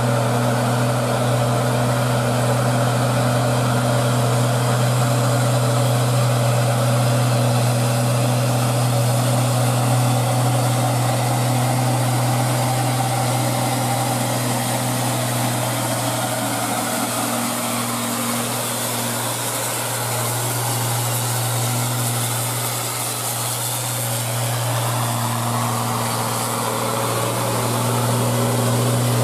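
Diesel engine of a Hino dump truck loaded with stone, labouring up a long steep grade in a steady low drone. The note eases a little past the middle and builds again near the end.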